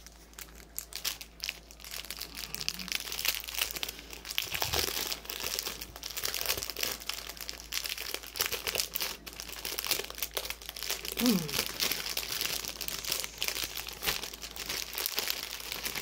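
Small plastic zip-lock bags of diamond-painting drills crinkling and rustling as they are handled, in a continuous run of irregular crackles.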